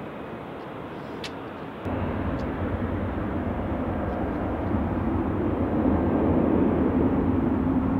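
Steady jet noise from an Airbus A320 that has just taken off gives way abruptly, about two seconds in, to louder Airbus A320 jet engines on the runway. That engine noise keeps rising, with a steady whine coming in near the end.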